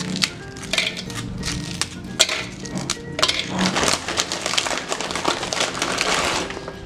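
A plastic cookie wrapper crinkling as María cookies are tipped out of it and clatter into a plastic food processor bowl, with a steady run of irregular crackles and clicks.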